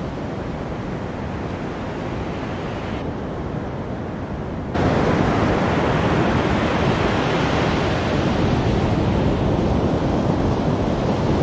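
Surf washing on a beach with wind buffeting the microphone, an even rushing noise that jumps abruptly louder about five seconds in.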